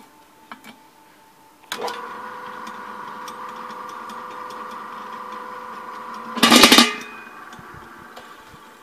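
Hobart A200 20-quart planetary mixer switched on with a click, its motor and gearbox running with a steady whine for about five seconds. A loud, brief clatter comes about six and a half seconds in, and then the running sound fades away.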